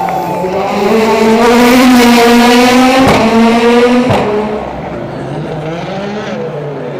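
A rally car's engine at high revs passing close, loud for about three seconds with two sharp cracks near the end of the pass, then dropping in pitch and fading away.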